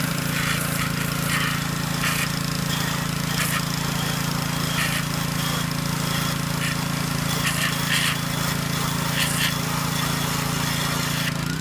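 Honda small engine of a Troy-Bilt gas pressure washer running steadily, with the loud hiss of the high-pressure water jet over it, rising and falling as the spray moves across the surface. The spray cuts off near the end while the engine keeps running.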